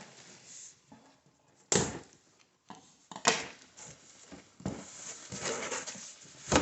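Cardboard shipping carton being opened and handled: sharp knocks about two and three seconds in, then rustling and scraping near the end.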